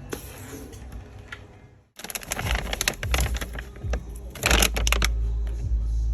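A quick, irregular run of sharp clicks and rattles, starting about two seconds in, with a low rumble of something handled close to the microphone from about halfway.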